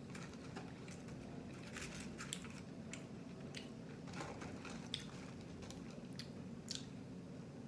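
Close-miked eating of crispy fried food: irregular crunchy bites and wet chewing, with sharp crackles every half second or so.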